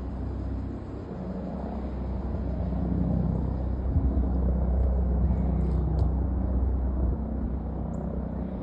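Airbus EC145 twin-turboshaft helicopter running, a deep rotor and engine rumble that builds over the first few seconds, is loudest in the middle, then eases off.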